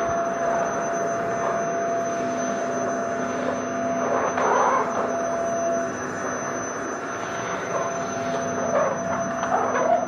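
Vacuum cleaner running steadily, a motor whine over a rush of air, swelling briefly about four seconds in.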